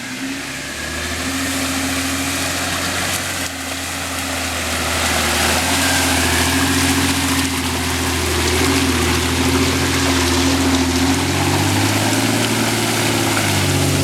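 An off-road SUV engine running at low revs under load, its hum wavering slightly in pitch and growing louder over the first few seconds as the vehicle crawls through mud, over a steady hiss.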